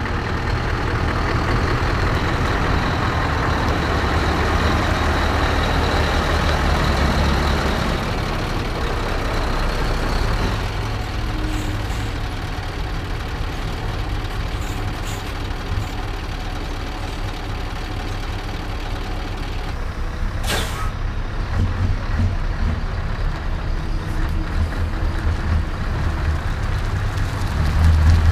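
Heavy trucks rolling slowly past one after another: a tractor unit pulling a loaded car-transporter trailer rumbles by, loudest over the first ten seconds, then the trailer passes more quietly. There is a short air-brake hiss about twenty seconds in, and the next truck's engine grows louder near the end.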